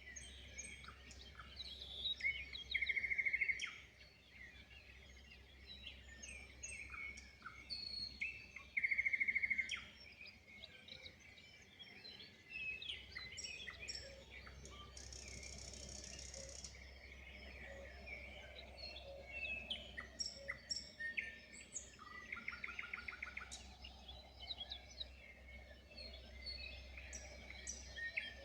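Several wild birds singing and calling together in a dawn chorus of many short chirps and trills. A loud buzzy trill sounds twice, about 3 and 9 seconds in, and a higher buzzy trill comes about halfway through. A steady low rumble runs underneath.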